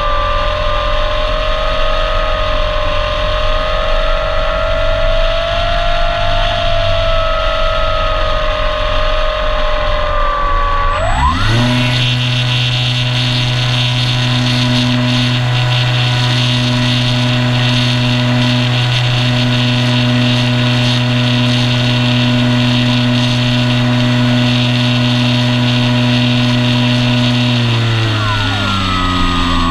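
Onboard sound of the Apprentice S 15e RC plane's electric motor and propeller, a steady whine over a hiss of wind. About eleven seconds in the pitch sweeps sharply up and holds at the new speed, then steps down again near the end.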